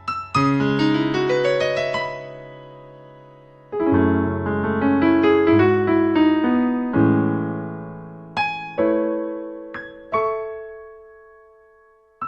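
Casio CTK-4200 arranger keyboard playing a piano voice: three chords with a low bass note under quick rising runs, each dying away, then a few separate notes near the end that fade out.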